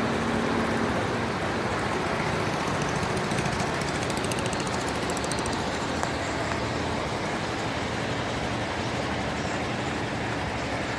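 Speed boat engine running steadily at speed, mixed with a loud, even rush of wind and water noise.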